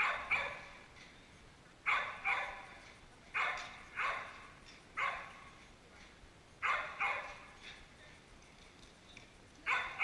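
A dog barking repeatedly, about ten sharp barks, mostly in quick pairs, every second and a half or so.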